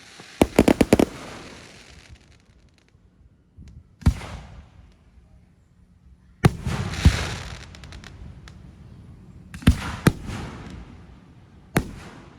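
Fireworks going off: a quick string of sharp bangs about half a second in, then single loud bangs every two to three seconds, several trailing off in a crackling hiss.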